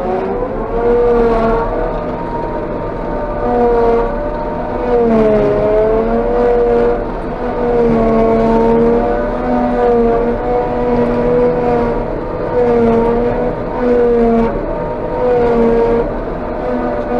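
Claas Jaguar 830 forage harvester running under load while chopping grass, heard from inside its cab. A steady machine drone carries a whine whose pitch wavers, dipping and recovering several times.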